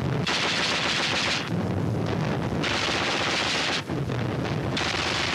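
Light anti-aircraft guns firing in rapid automatic bursts: three bursts of about a second each with short pauses between, on an old newsreel soundtrack.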